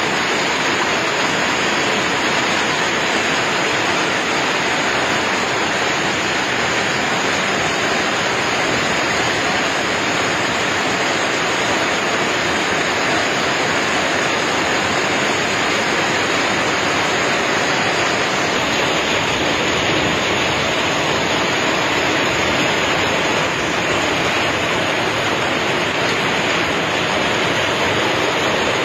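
Heavy hail falling steadily, a dense hiss of hailstones striking a lawn and paved ground.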